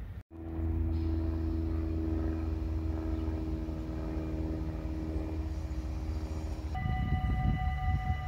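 A steady hum of several pitches, then, from about two-thirds in, a railway level-crossing warning bell ringing steadily with the barriers down, over wind rumble on the microphone.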